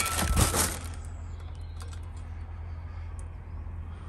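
Plastic packaging rustling and stainless exhaust pipework being handled in a cardboard box, which stops within the first second. A low steady hum follows, with a few faint clicks.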